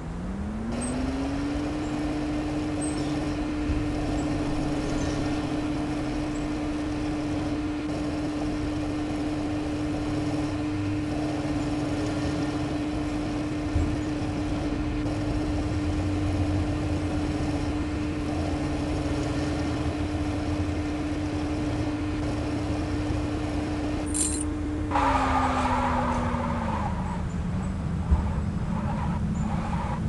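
Motor vehicle engine running: its pitch rises about a second in as it speeds up, holds steady for a long stretch, then falls about 25 seconds in as it slows and begins rising again near the end. A low rumble runs underneath.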